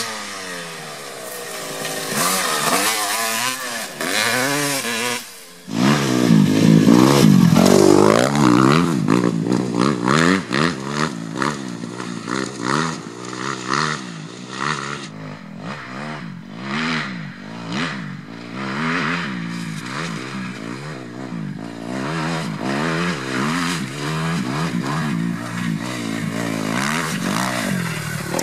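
Dirt bike engines revving hard, pitch climbing and falling again and again as the riders open the throttle and shift through the gears. About six seconds in, the sound drops out briefly and comes back loud.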